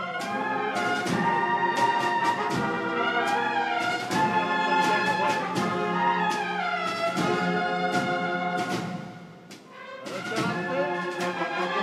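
Brass band playing a Holy Week procession march: sustained trumpet chords over sharp percussion strokes. The music drops away briefly about nine seconds in, then the band comes back in.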